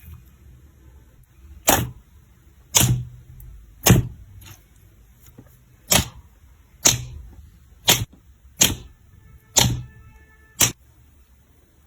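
Slime being worked by hand, giving nine sharp snaps roughly a second apart, with a gap of about two seconds after the third.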